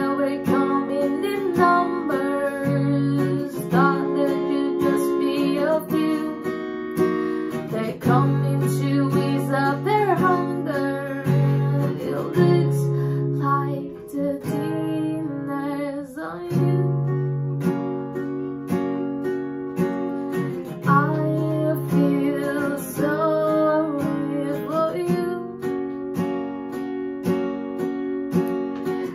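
Acoustic guitar strummed in steady chords while a woman sings over it.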